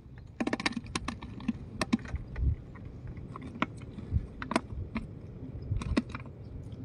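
Light, irregular clicks and taps from fishing handlines and gear being handled on a wooden raft: a quick run of clicks in the first second, then single ones every half second or so, with a dull low knock about two and a half seconds in.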